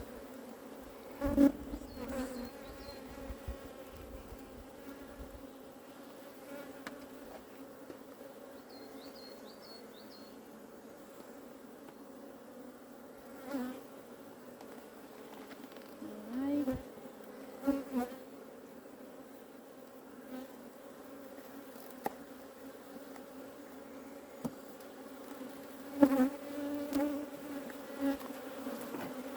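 Honeybees buzzing around an open hive: a steady hum with louder swells as single bees fly close past. A few short knocks stand out, the loudest about a second and a half in and again near the end.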